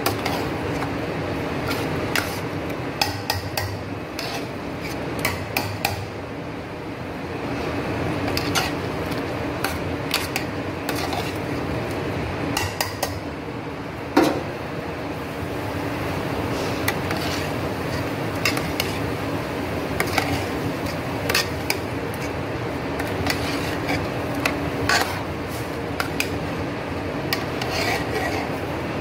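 Metal spoon stirring a thick stew in a stainless steel pot, scraping and clinking irregularly against the pot's side and bottom, with one louder knock about halfway through. A steady hum runs underneath.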